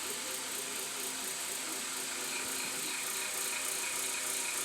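Steady background noise with a high hiss and a fast, ratchet-like rattling pulse, unbroken throughout.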